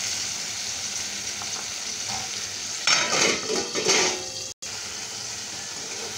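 Chopped tomatoes sizzling in hot oil in a kadai, a steady frying hiss. About three seconds in, a louder stretch of metal clatter as a steel lid is handled over the pan, then the sound cuts out for an instant and the sizzle carries on.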